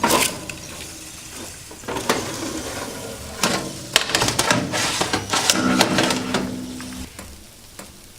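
Air fryer toaster oven door opening with a sharp click, followed by several knocks and metal clatters of the oven tray and rack being handled. A brief low hum sounds about two-thirds of the way through.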